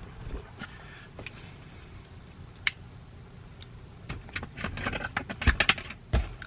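Hand tools being handled, clicking and knocking: a few scattered clicks, then a quick irregular run of clicks with two dull thumps in the second half.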